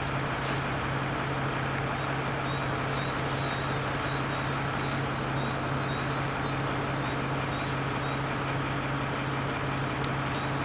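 Fire engine's motor running steadily with a low, even hum.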